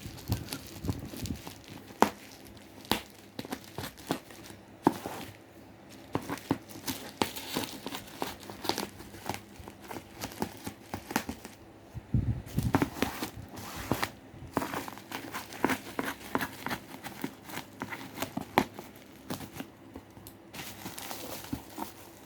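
Packaging being torn and opened by hand: crinkling and tearing with many irregular sharp clicks and taps.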